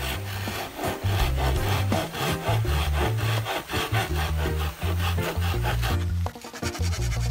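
Coleman folding saw cutting through a green bamboo pole in quick, even back-and-forth strokes, with a brief pause about six seconds in.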